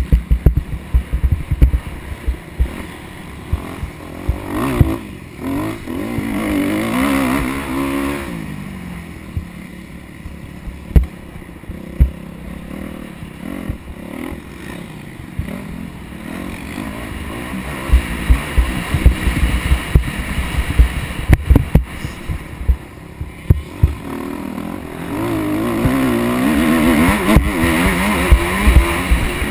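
Motocross bike engine revving up and down as it is ridden around a dirt track, the pitch climbing hard twice, about a fifth of the way in and again near the end. Heard from a helmet camera, with heavy wind buffeting and sharp thumps over the bumps.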